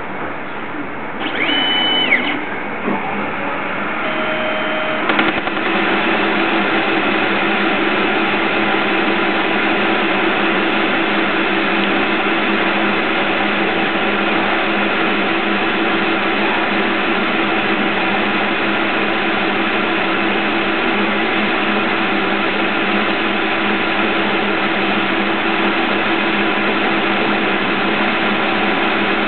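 CNC Myford Super 7 lathe turning a steel spindle-nose blank with a carbide insert tool. Near the start a short whine from the axis drive rises, holds and falls, and a second brief whine follows. From about five seconds the spindle and cut run steadily and evenly.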